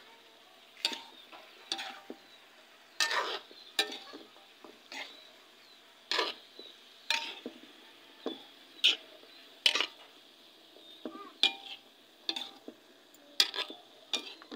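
Metal spatula scraping and clacking against a metal wok while stir-frying sliced bitter gourd with pork, in irregular strokes about once a second, over a faint steady sizzle.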